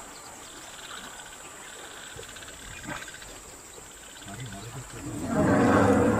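Faint steady insect buzzing, then from about four seconds in a swelling burst of loud, rough wild-animal calls that is loudest near the end, typical of a lion and buffalo fight.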